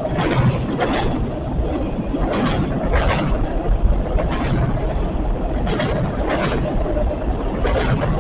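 Train passing close by: a steady low rumble with sharp clacks from the wheels, often in close pairs every second or two.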